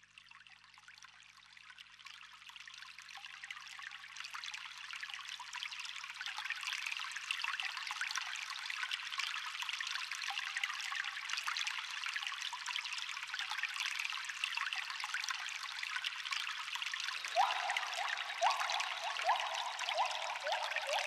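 Water from a rain shower head falling in a steady hiss, fading in over the first few seconds and then holding even. Music with short repeated notes comes in over it near the end.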